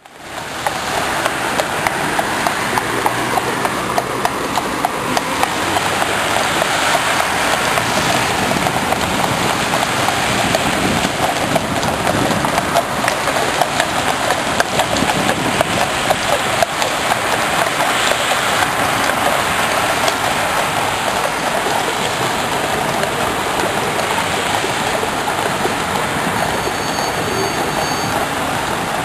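Many horses' hooves clip-clopping on wet tarmac as a mounted troop of Household Cavalry passes, over a steady hiss of rain.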